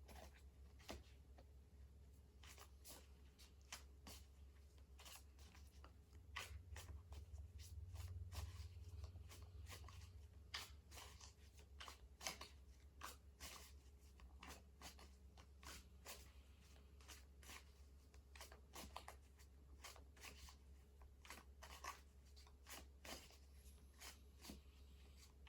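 Faint, scattered clicks and rustles of tarot cards being handled, over a steady low hum.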